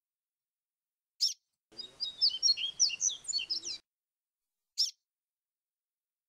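Papa-capim (yellow-bellied seedeater) singing a quick two-second phrase of varied, high fluty notes in the 'grego flautado' style, with a single sharp chirp just before it and another a second after it.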